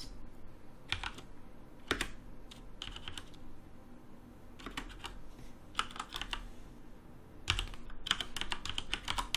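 Typing on a computer keyboard: keystrokes come in short irregular bursts with pauses between them, busiest near the end.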